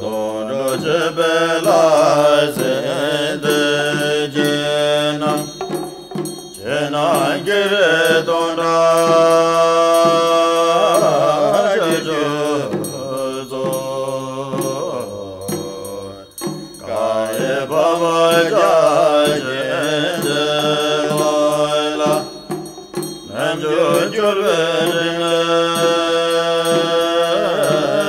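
Tibetan Buddhist mantra chanting: a voice sings long, melodic held phrases, with brief pauses between them.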